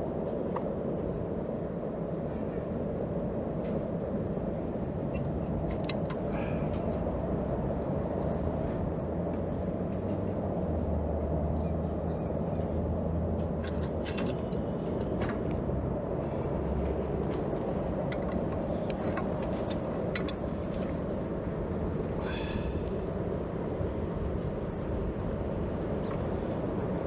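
A forge running with a steady low roar, with scattered light metallic clicks and taps.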